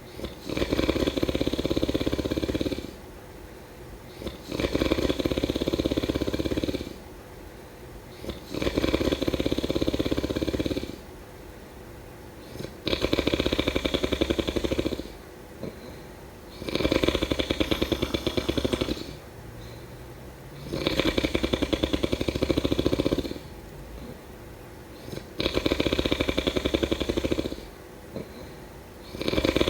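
A person snoring in a steady rhythm, one snore about every four seconds. Each snore is a rapid flutter lasting about two seconds, with quieter stretches between.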